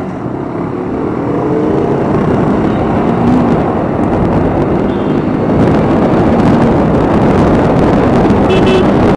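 Motorcycle riding noise: wind rushing over the microphone mixed with the engine and road and traffic noise, getting louder over the first five seconds or so.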